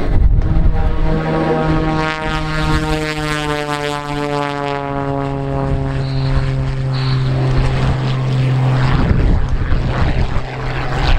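Propeller-driven aerobatic airplane making a low pass. Its engine and propeller note drops steadily in pitch as it flies by, then gives way to a rougher rush of noise about nine seconds in.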